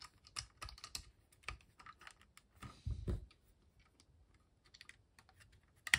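Light plastic clicks and taps of LEGO pieces as the wheels and bricks of a small LEGO model car are pressed home and the car is handled, with a louder handling noise about three seconds in.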